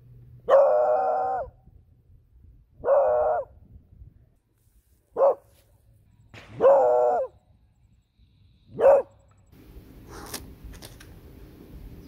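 A beagle barking: five separate barks, three of them drawn out to about half a second or more and two short and sharp. Near the end the barking gives way to fainter rustling with a few soft clicks.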